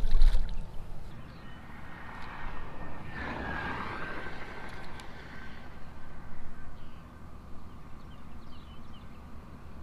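A spotted bass splashing into the water as it is dropped back into the ditch, a sudden low splash right at the start. After it, a quieter steady low rumble with a faint thin whine and a couple of light clicks.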